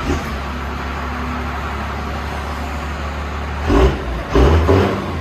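1997 Dodge Ram 2500's 5.9-litre Cummins inline-six turbodiesel idling steadily through a straight-piped, muffler-deleted 3-inch exhaust with a 6-inch tip, then revved twice briefly near the end.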